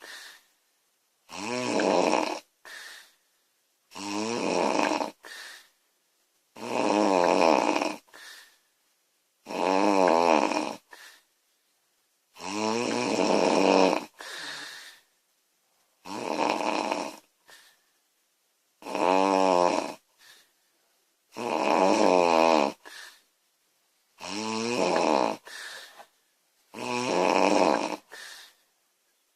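A woman snoring loudly in a steady rhythm, about ten snores a roughly three seconds apart. Each long, wavering snore is followed by a short, quieter breath sound.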